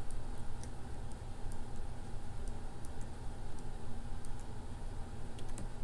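Faint, irregular clicks of a computer keyboard and mouse, about a dozen spread across the few seconds, over a steady low hum.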